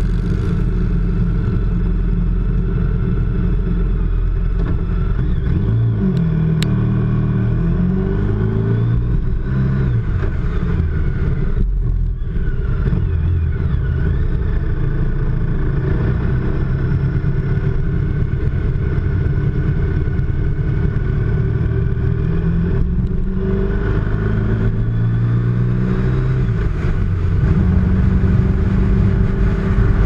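Motorcycle engine running on the road, its pitch rising and falling a few times with the throttle, and a little louder near the end.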